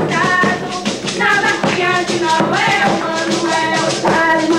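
Live coco-style song: a singer's voice with a steady rhythm of shaker percussion.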